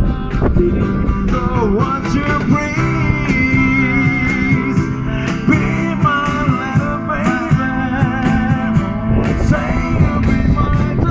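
Background music: a guitar-backed rock song with a steady beat and a sung melody.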